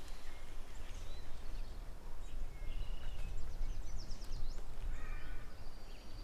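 Small birds chirping and trilling, with short high calls scattered through and a buzzy note about three seconds in and again about five seconds in, over a steady low rumble.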